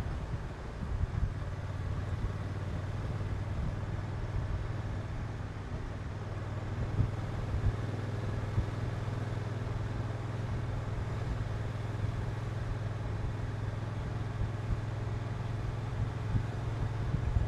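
Honda NT1100's 1084 cc parallel-twin engine running at a steady cruise, its note holding level throughout, with short low thumps of wind buffeting the microphone.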